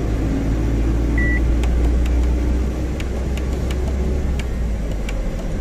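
Tata 1512 truck's diesel engine and road noise droning steadily from inside the cab while driving, with a short high beep about a second in and a few faint clicks.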